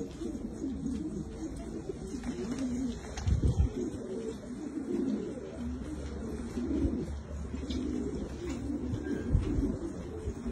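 Many fancy pigeons cooing at once, a continuous overlapping murmur of low coos. Two short low thumps, about a third of the way in and near the end, are the loudest moments.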